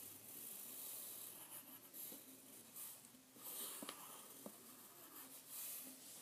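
Pencil scratching on paper in a series of short writing strokes, faint, with a couple of light taps about two-thirds of the way through.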